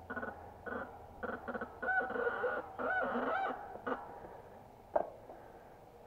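Mountain bike brake squealing in a series of short pitched honks as the bike creeps down a steep trail on the brakes, a sign of the glazed front brake pad. A single sharp click about five seconds in.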